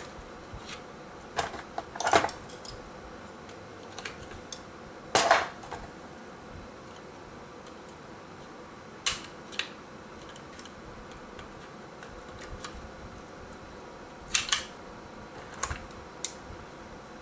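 Scattered clicks and knocks of hard plastic RC truck chassis parts being handled and set down on a bench, the sharpest about five seconds in.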